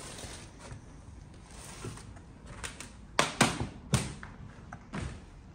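Footsteps across a littered floor, with several sharp knocks: three close together about three to four seconds in, and another near five seconds.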